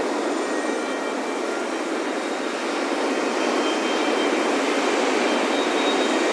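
Ocean surf breaking and washing on a beach as a steady rush of noise that swells slightly about four seconds in. Faint wind chime tones ring high above it.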